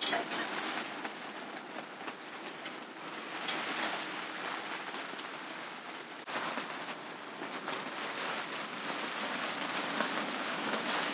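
Steady rain pattering on the tent shelter, with a few light clicks of tongs against metal cookware.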